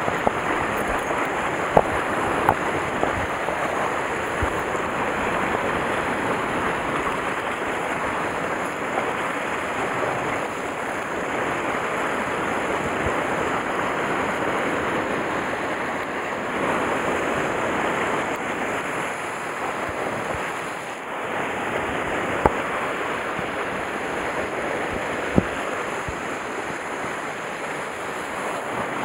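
Sea surf washing and breaking against a rocky shoreline: a steady rushing noise that swells and eases. A few sharp clicks stand out over it.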